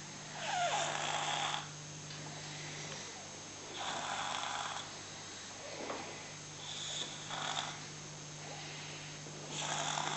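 A baby snoring: four noisy breaths about three seconds apart, the third broken in two, over a steady low hum.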